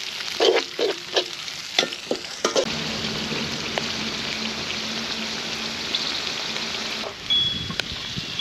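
Dry fruits frying in ghee in a pan while a spatula stirs them: quick scraping and knocking strokes against the pan for the first couple of seconds, then a steady sizzle.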